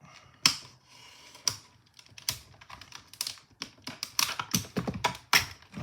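A plastic blister pack being cut open: irregular sharp snips, clicks and crackles of the stiff plastic, coming faster over the last couple of seconds.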